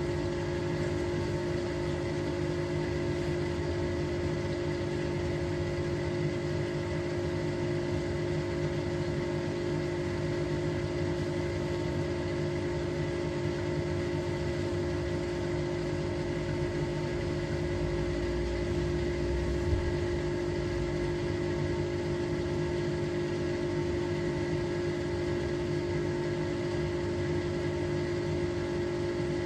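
Hotpoint Experience WMEF641 washing machine running with a steady electric motor hum, one strong even tone with fainter overtones and no pauses.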